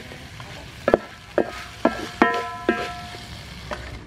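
A metal spatula knocking and scraping against a steel wok while stir-frying squid, about six sharp clangs that each ring on briefly, over a low sizzle of frying.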